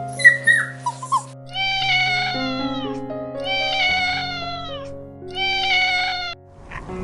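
Domestic cat meowing three times, each meow about a second long and falling in pitch at the end, over steady background music.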